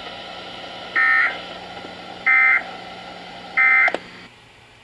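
NOAA Weather Radio SAME end-of-message data bursts: three short, identical digital tone bursts about 1.3 seconds apart, the code that marks the end of the alert message, over a low steady hum and radio hiss.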